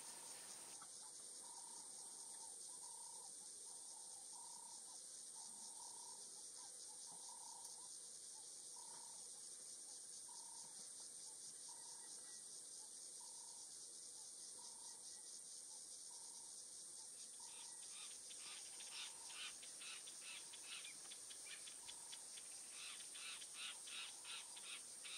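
Faint bush ambience: a steady high insect drone, and a bird repeating one short note a little more than once a second. From about two-thirds of the way in, a run of quick high chirps joins in.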